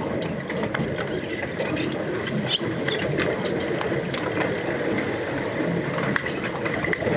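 Underwater hockey play heard through a submerged camera: a steady underwater rush from splashing and finning swimmers, sprinkled with many short clicks and knocks from sticks and puck striking each other and the tiled pool floor.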